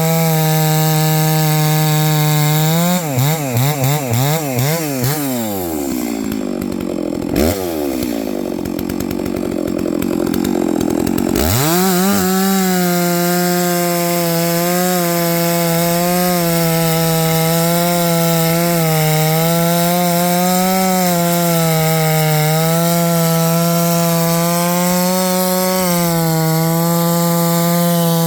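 660 two-stroke chainsaw running hard at full throttle in very hard dry elm. About three seconds in the throttle is blipped several times and the engine drops to idle, then about twelve seconds in it revs sharply back up to a steady high note that wavers slightly under load.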